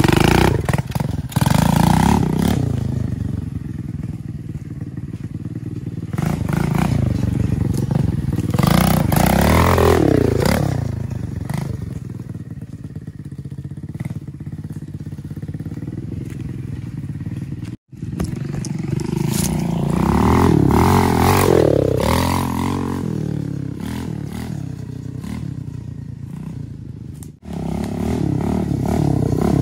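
Small mini dirt bike engine riding a dirt trail, its pitch climbing and falling again and again as the throttle is opened and closed. The sound cuts out sharply twice, about eighteen seconds in and again near the end.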